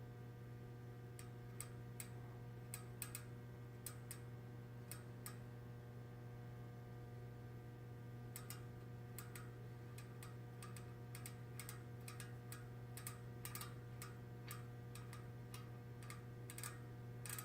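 Freehub pawls of a Velomax hub clicking irregularly, in short runs, as the freehub is turned slowly with freehub oil seeping in. A steady low hum sits underneath.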